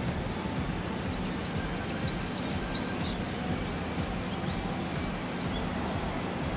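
Steady outdoor background noise with small birds chirping: a quick series of high, short chirps from about a second and a half to four and a half seconds in, then a few fainter ones.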